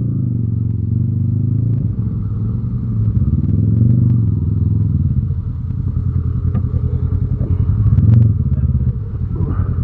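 Yamaha Raptor 700R ATV's single-cylinder engine running at low speed with a rapid low pulse, revving up briefly about three to four seconds in and again about eight seconds in.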